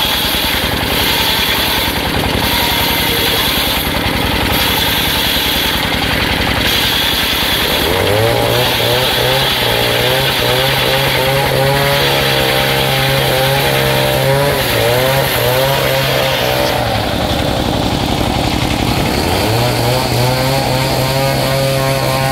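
Engine-driven circular sawmill blade ripping lengthwise through a large log, with the engine running under load. The sound is loud and steady. A humming tone comes in about eight seconds in, drops out for a couple of seconds near the middle, and returns.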